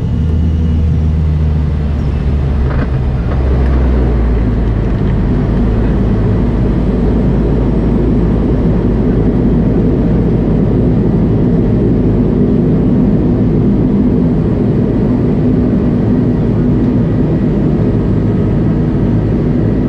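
Bombardier Dash 8-Q200's Pratt & Whitney PW123 turboprop engine and propeller running at low power while the aircraft taxis after landing, heard inside the cabin next to the engine. It is a steady, loud low drone with several humming tones, the deepest shifting slightly about four seconds in.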